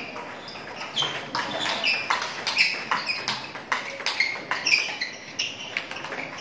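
Table tennis balls being hit in rallies: quick, irregular, sharp clicks of ball on bat and table, about three a second.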